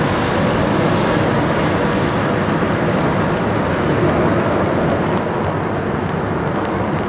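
Boeing 777 airliner on landing approach, its twin jet engines heard as a steady rushing rumble just after it passes overhead. The sound slowly dulls and eases as the jet moves away.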